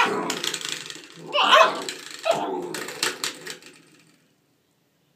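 A 9-week-old German shorthaired pointer puppy barks and yips while it paws at a spring doorstop, among short knocking and clicking noises. The sound cuts off abruptly about four seconds in.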